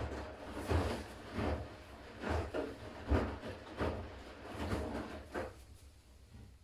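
Siemens iQ500 front-loading washing machine washing on its Delicates/Silk programme: the drum turns and the laundry and water swish in a run of about eight swells, roughly one every three-quarters of a second. The swells stop about five and a half seconds in as the drum pauses.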